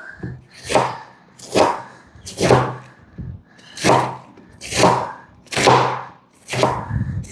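Kitchen knife chopping through a raw cabbage on a cutting board, a crunching stroke about once a second, seven or so in all.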